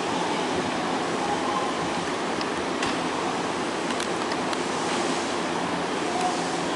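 Nankai 6000-series electric commuter train standing at the platform, its equipment giving a steady rushing hum, with a few faint light clicks.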